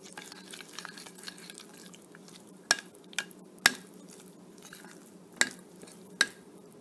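A steel spoon stirring thick semolina (rawa) idli batter in a bowl, making soft wet scraping. About five sharp clinks ring out where the spoon knocks the side of the bowl, three close together around the middle and two more near the end.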